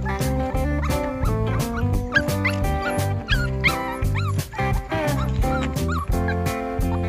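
Background music with a steady beat and held chords. Over it, Pomsky puppies give short, high whimpers and yips that bend up and down in pitch.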